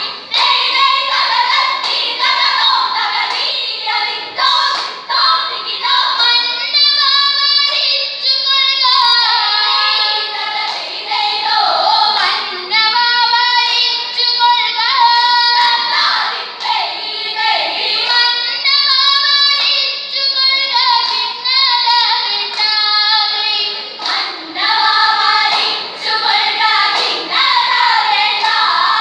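A chorus of schoolgirls singing a Malayalam vanchippattu, the Kerala boat song, in unison, with hand claps keeping the beat.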